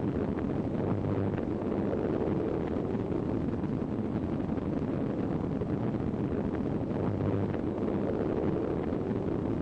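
Steady engine drone of a formation of floatplanes in flight, an even rumbling roar with no breaks.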